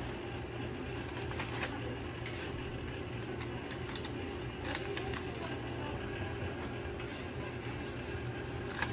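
Metal tongs clicking and scraping on a flat steel griddle as fried hotteok are lifted off, a few separate clicks over a steady low hum.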